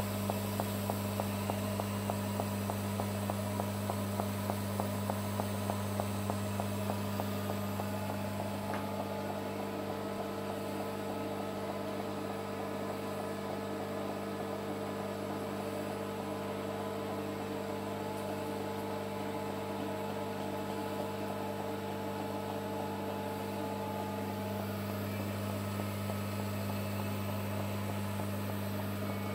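Pulsed TIG arc of a Polysoude MW40 enclosed orbital weld head welding stainless tube, beating about three times a second over a steady electrical hum. About eight seconds in the pulsing stops with a faint click, and the steady hum of the welding equipment carries on.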